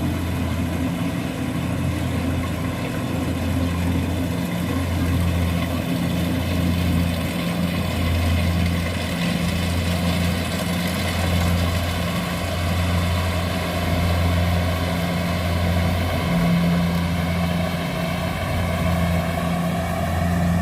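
Kubota rice combine harvester's diesel engine running steadily, with a low hum that swells and dips about every two seconds.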